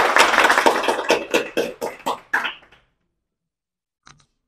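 A small group applauding: dense clapping that thins to scattered claps after about a second and stops about three seconds in.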